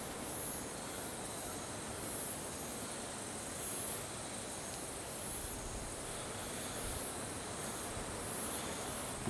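Night insects chirping: a high-pitched pulsing trill in repeated short groups over a steady hiss.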